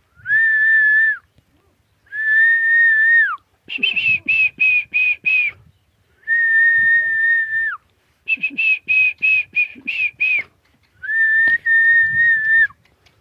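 A person whistling: four long, steady held notes, with two runs of quick, short repeated notes between them.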